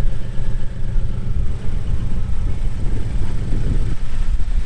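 Scion FR-S with its flat-four boxer engine running: a steady, loud, low rumble.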